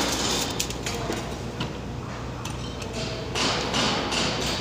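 Aluminium blister foil crinkling and rustling as it is handled and its roll is fitted onto the packing machine's spindle, with a few light knocks, over a steady low hum.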